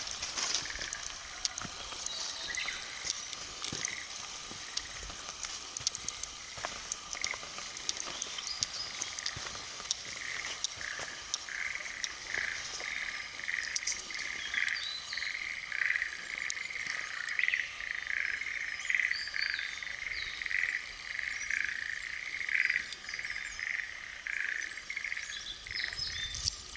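Frogs calling: short croaks repeated at one pitch, sparse at first, then thickening into a dense, overlapping chorus about ten seconds in.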